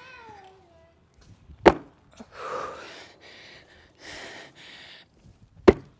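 Two sharp thuds about four seconds apart as sneakers land on a wooden plyometric box during box hops, with hard breathing in between.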